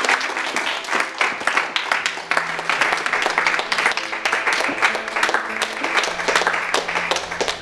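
A class of students clapping in applause, with soft background music underneath.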